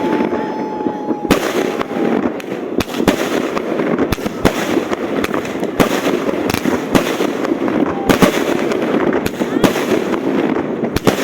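Many fireworks going off: frequent sharp bangs at irregular intervals over continuous crackling, with a whistle sounding for the first two seconds or so.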